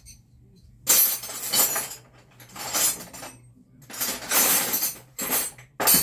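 Metal wrenches and hand tools clattering and clinking in four or five short bursts, as a pile of tools is rummaged through in search of one wrench.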